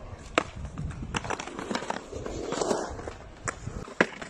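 Skateboards clacking and knocking on concrete: a scattered series of sharp clacks, the loudest about four seconds in.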